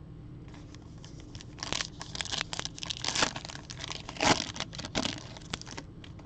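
Foil wrapper of a 2021-22 Donruss basketball card pack being crinkled and torn open by hand: a run of sharp crackles and tearing from about half a second in, loudest just past four seconds.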